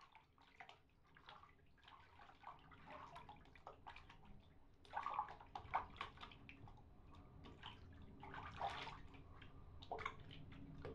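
Faint, irregular clicks, clinks and scrapes of hand work at a bathroom cabinet, with a busier patch about five seconds in and another near nine seconds.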